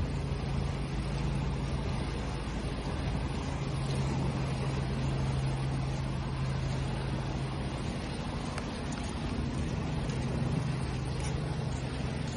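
Steady rushing wash of waves with a constant low hum underneath, like a running motor; a second, slightly higher hum joins about two-thirds of the way through.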